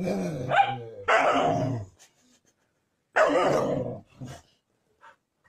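Huskies vocalizing: three drawn-out calls, each under a second long, with the pitch sliding up and down. The third call comes after a pause of about a second.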